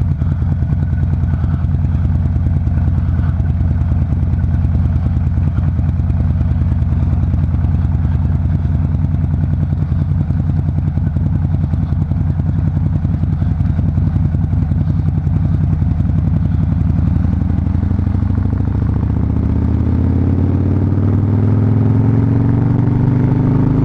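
Harley-Davidson Fat Bob's V-twin engine running steadily, then rising in pitch over the last several seconds as the bike accelerates.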